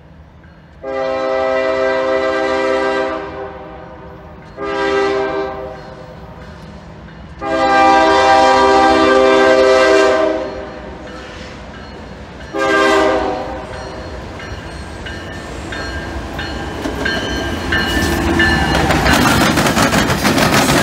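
Norfolk Southern diesel freight locomotive's air horn sounding four blasts (long, short, long, short) for a grade crossing. Then the rumble of the approaching locomotive and autorack cars builds, with wheels clattering over the railroad diamond near the end.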